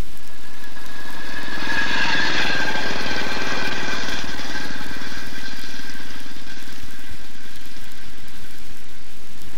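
Small engine of a railway track motor car (speeder) running steadily with a fast chatter as it travels along the rails. A high whine rises over it about a second and a half in and fades away by about six seconds.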